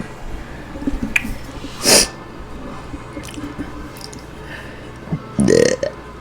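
A woman's wet mouth sounds as she works up burps on command: small wet clicks, a short sharp gulp about two seconds in, then a low burp near the end.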